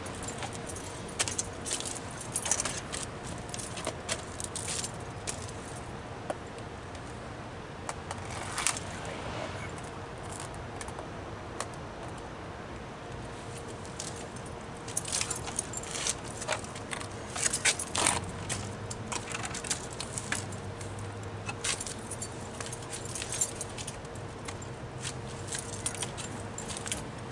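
Handling noise as an opened-up tabletop TV set is shifted back across pavement: scattered clicks, clinks and rattles with scuffing footsteps. The sounds come in clusters and are busiest in the second half.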